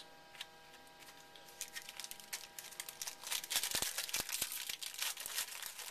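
A trading-card pack wrapper being torn open and crinkled by hand. A dense run of crackles starts about a second and a half in and eases off near the end.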